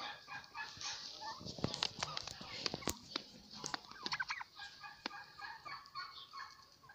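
Young domestic turkeys calling softly with many short, repeated chirping peeps, over a scatter of quick sharp clicks.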